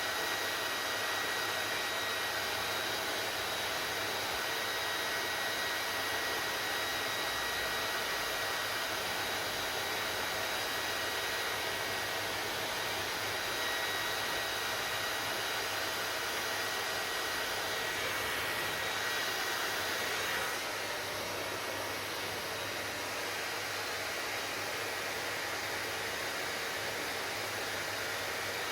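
Hair dryer blowing steadily: a rushing air noise with a high motor whine over it. About twenty seconds in it gets slightly quieter and the whine fades.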